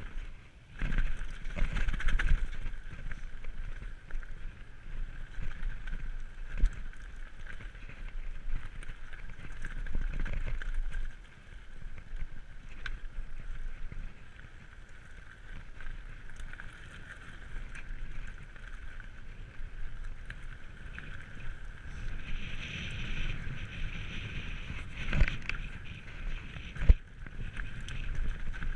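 Specialized Kenevo e-mountain bike riding fast down a gravel trail: tyres rumbling over loose stones, with rattles and sharp knocks from the bike over bumps and wind on the microphone. A steady high whine runs underneath.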